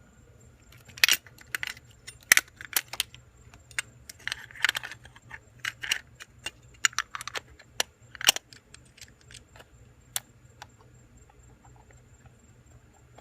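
Sharp irregular clicks and rattles of a car's sensor and its plastic plug being handled, turned over and pushed into its connector, busiest in the first eight seconds and dying away after about ten.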